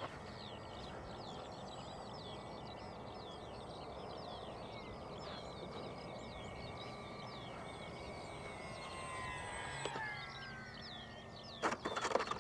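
Small birds chirping and singing steadily, with a faint falling whistle about nine seconds in and a few sharp knocks near the end.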